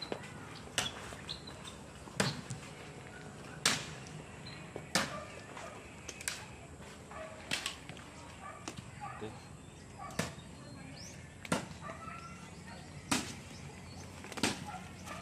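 Sharp knocks repeating about every one and a half seconds, with short bird chirps between them.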